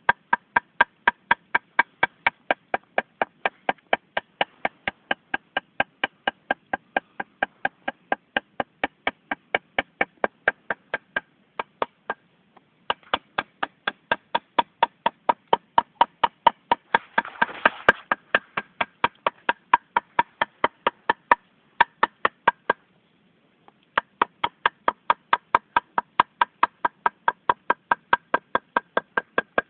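Steady, rapid knocking, about three or four sharp strokes a second, each with the same ringing tone. It stops briefly twice. A short rustle comes about two-thirds of the way through.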